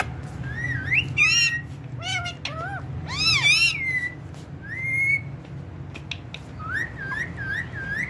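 Indian ringneck parakeet whistling and calling: a string of rising and falling whistled notes and arching calls, ending in a quick run of four or five short rising whistles.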